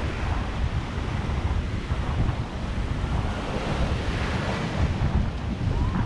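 Small waves washing up on a sandy shore, with wind buffeting the microphone in a steady, low rumble.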